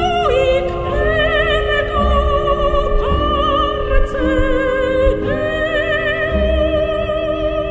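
Background music: a slow melody of long held notes with strong vibrato, changing pitch every second or two over sustained low notes.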